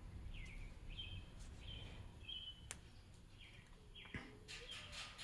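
Faint bird chirps, short high calls repeating every half second to a second, some sliding downward, with a single sharp click about two and a half seconds in.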